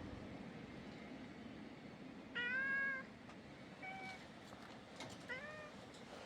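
Calico cat meowing three times: a loud meow about two and a half seconds in, a short fainter one about a second later, and a meow that rises in pitch near the end.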